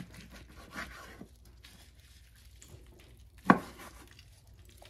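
Knife cutting smoked turkey meat off the bone: faint scraping and light taps, with one sharp knock about three and a half seconds in.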